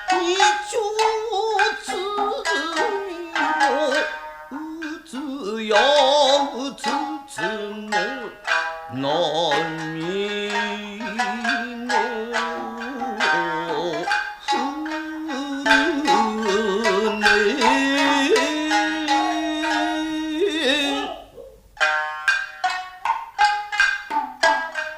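Nagauta music: shamisen plucking under long, wavering sung notes. The music drops away briefly near the end, then the shamisen picks up again.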